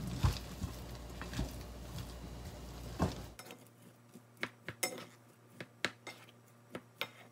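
White plastic rice paddle mixing cooked rice in a rice cooker's inner pot: a dozen or so irregular knocks and scrapes as the paddle hits the pot's side.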